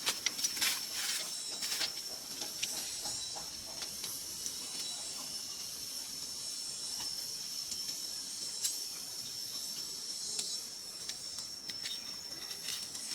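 Insects droning steadily in a high-pitched buzz, with a hiss above it and scattered light clicks and rustles.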